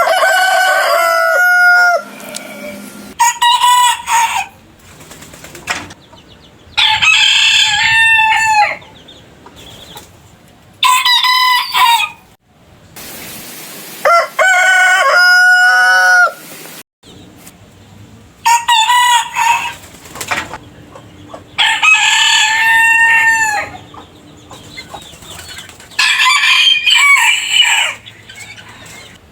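Roosters crowing, about eight crows one after another, each lasting one to two seconds with short gaps between. The crows are from different roosters, each with its own pitch and shape.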